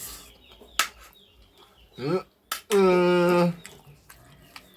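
A few sharp clinks of cutlery against a dish, with a short rising call about halfway through and then a louder, steady call held for nearly a second.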